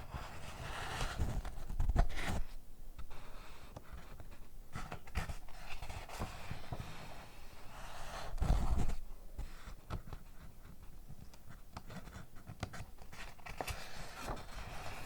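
Close-miked scratching, rustling and tapping of paper and packaging being handled, with soft thumps about two seconds in and again near the middle.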